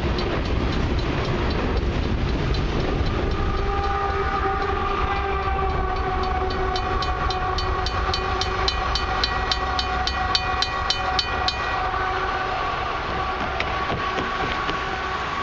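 A long freight train of loaded crude oil tank cars rolling past with a steady low rumble. Clickety-clack of wheels over rail joints comes at about four clicks a second through the middle, over a steady tone.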